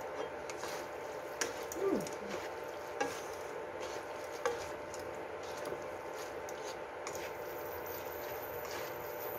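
Pasta being tossed and stirred in a nonstick wok with tongs and a silicone spatula, the food sizzling gently, with a few light clicks of the utensils against the pan.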